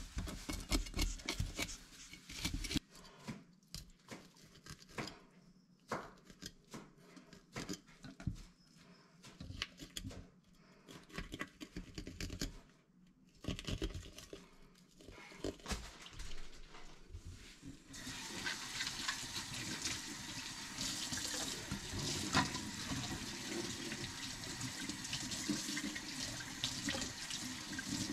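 A knife scraping scales off a whitefish in a stainless steel sink, in short irregular strokes. About two-thirds of the way through, the kitchen tap is turned on and runs steadily into the sink.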